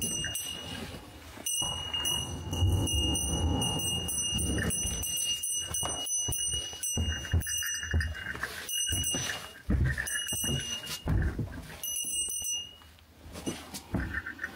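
A small bell ringing again and again at one steady pitch, stopping and starting, over the thumps and scuffs of footsteps climbing wooden stairs through debris.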